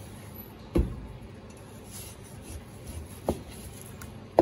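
A cleaver slicing raw beef into thick slices, the blade knocking on a plastic cutting board three times as each cut goes through: about a second in, after about three seconds, and loudest at the end.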